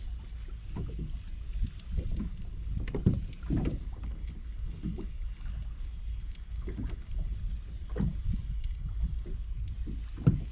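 Water lapping and slapping against a kayak's hull in irregular small splashes and knocks, over a steady low rumble of wind on the microphone.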